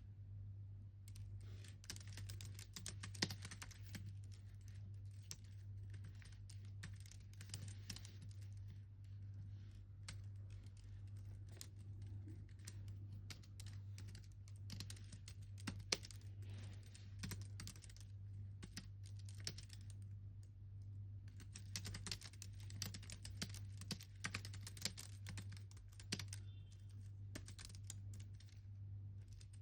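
Typing on a computer keyboard: runs of quick keystrokes with a few short pauses, over a low steady hum.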